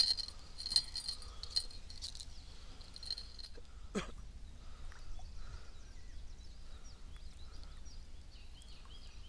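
A small bite-alarm bell on a feeder rod jingling faintly in the first couple of seconds, then a single whoosh about four seconds in, with faint bird chirps after it.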